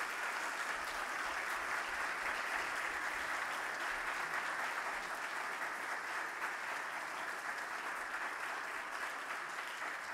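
A congregation applauding, steady clapping from many hands that tapers slightly near the end.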